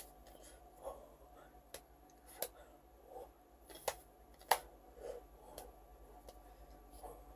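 Faint sharp claps and taps of hands striking and brushing together during signing, about five of them, the loudest a little past halfway, with a few soft mouth sounds in between.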